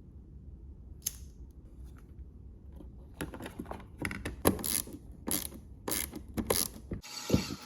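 Irregular clicking and rattling of a small mechanism, starting about three seconds in over a low steady hum. Near the end the hum stops and a hiss with a few knocks takes over.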